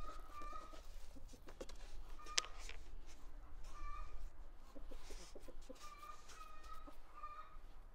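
Chickens clucking in short, repeated calls. Soft knocks from hands pressing dough on a wooden board run alongside, with one sharp click about two and a half seconds in.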